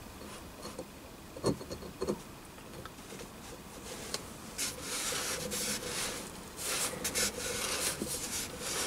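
A metal lathe chuck being turned and slid by hand on a plywood board: a couple of light knocks, then from about halfway a run of rubbing and scraping.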